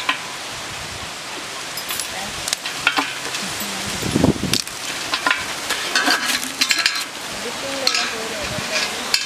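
Fresh cauliflower florets being snapped off the head by hand: a scatter of crisp snaps and cracks, with pieces dropping into an aluminium colander, over a steady hiss.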